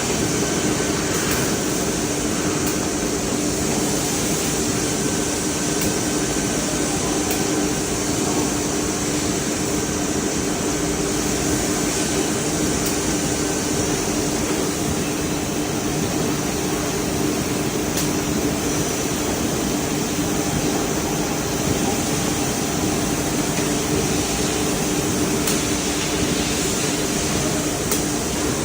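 CNC six-sided drilling machine running: a steady mechanical hum with two constant low tones over an even noise, and a few faint ticks.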